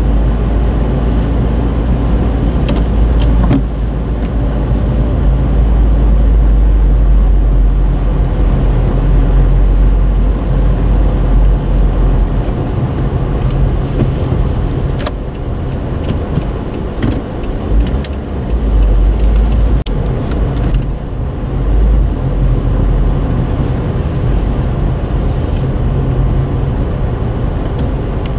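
Car driving, a steady low road-and-engine rumble with scattered small clicks and ticks.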